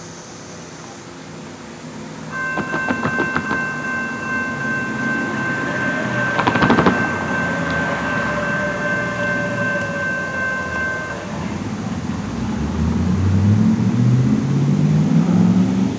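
Horn of an approaching Norfolk Southern GE D9-44CW diesel locomotive, one chord held for about eight seconds. Near the end the locomotive's engine comes in as a low drone that grows louder and steps up in pitch.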